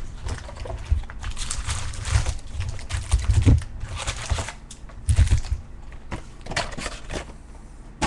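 A box of baseball cards and its packs being opened and handled: irregular crinkling and rustling of cardboard and wrappers, with dull low bumps against the table.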